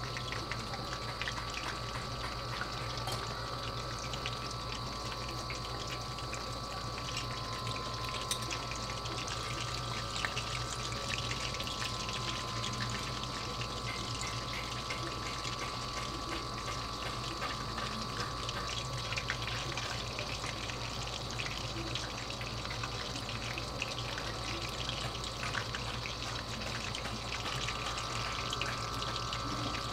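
Lumpia-wrapped shrimp rolls shallow-frying in hot cooking oil over low heat: a steady sizzle with fine, continuous crackling.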